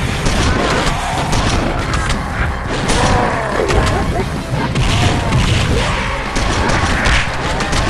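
Battle sound effects from an animated sci-fi fight: a dense, continuous mix of explosions, booms, gunfire and impacts, with warbling sweeps rising and falling through it.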